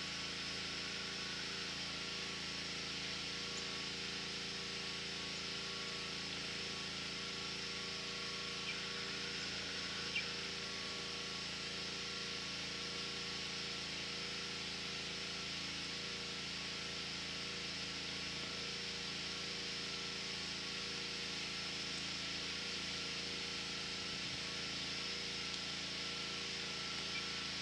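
Faint steady outdoor background: an even hiss with a constant low hum of several held tones, unchanging throughout, with one small click about ten seconds in.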